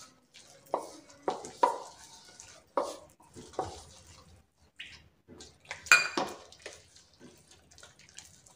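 Fingers mixing a damp flour-and-spice batter in a stainless steel bowl, with wet squishing and scattered clinks and knocks from the bowl. The loudest knock comes about six seconds in.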